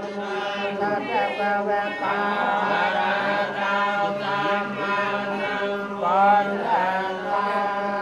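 Buddhist monks chanting together into microphones, several voices in long, held, gliding lines over a steady low hum.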